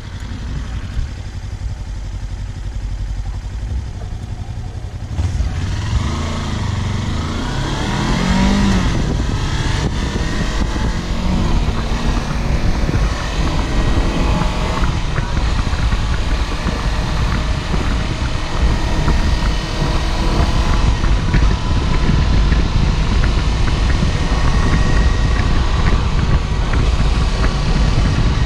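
Kawasaki Versys-X 300's parallel-twin engine ticking over low as the bike rolls off, then revving up through the gears from about five seconds in, with rising pitch sweeps. It settles into steady running at road speed, with wind rush building over the engine note.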